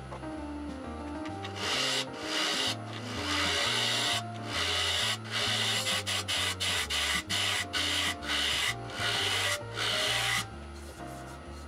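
Background music with a stepping bass line, over a rasping, scraping noise in short irregular bursts: a bowl gouge cutting the inside of a spinning wooden bowl on a lathe, sped up.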